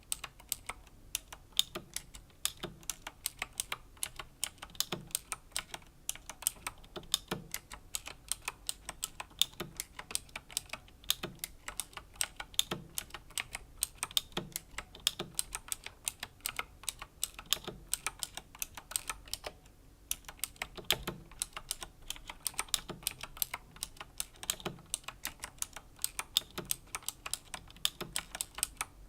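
Slow typing on a Razer BlackWidow Chroma V2 mechanical keyboard with clicky Razer Green switches: a steady run of sharp key clicks, several a second, with a deeper thud every second or so. There is a brief pause about twenty seconds in.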